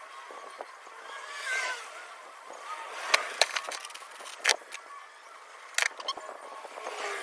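Shop work noise: a series of sharp metallic knocks and clanks, with faint squeaks between them, from handling a V8 engine and its brackets into place.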